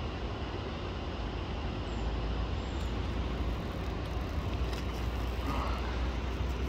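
Steady city background: a low rumble of road traffic under an even wash of noise that fits the river's flowing water.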